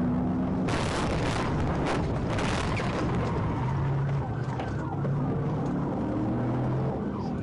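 A police cruiser collides with a pickup truck in a pursuit stop: a run of loud crashing and scraping impacts starts about a second in and lasts about two seconds. The patrol car's siren wails and its engine drones under and after the crash.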